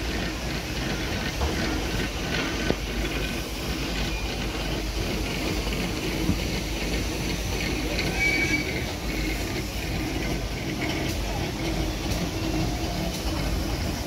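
Steady low rumble of a moving vehicle heard from its open top deck, with wind buffeting the microphone and faint passenger voices.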